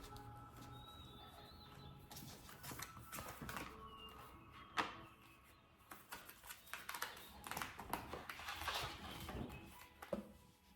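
Slime being squished and poked by hand, giving crackly, sticky squelches and clicks, with a sharp click about five seconds in. Soft background music plays under it.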